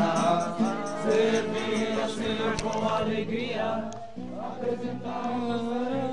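A large group of young voices singing a hymn together in held, sustained notes, with a short break between phrases about four seconds in.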